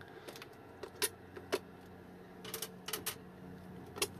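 Scattered sharp clicks and light knocks of an e-bike rack battery's hard casing being handled and worked open once its screws are out, the loudest about a second in.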